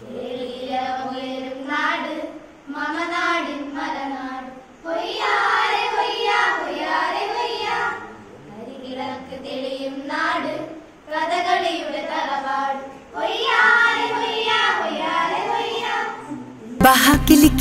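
A group of teenage girls singing a song together without accompaniment, in phrases of a few seconds with short breaks between them. Near the end it cuts abruptly to loud recorded dance music with a strong beat.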